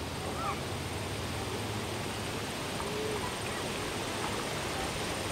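Steady outdoor background noise with a few faint, short animal-like calls, one rising near the start and one arching about three seconds in.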